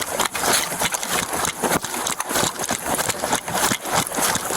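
Running footsteps and gear jostling, picked up close on a body-worn camera during a foot chase: a fast, uneven run of thuds and knocks over rustling noise.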